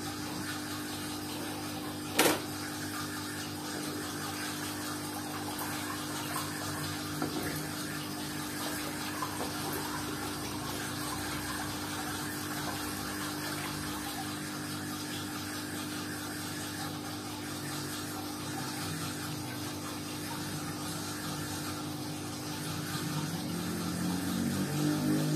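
Submersible aquarium pump running with a steady hum, with water bubbling in the tank. A single sharp click about two seconds in.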